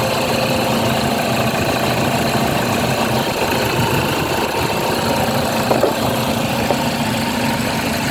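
2007 Toyota Fortuner's engine idling steadily, running again after a no-start fault was fixed. A couple of light clicks a little before six seconds in.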